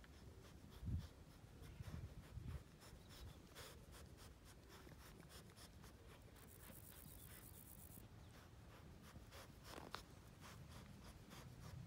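Faint scratchy clicking of a Labrador Retriever puppy gnawing on a rope toy, with a low thump about a second in.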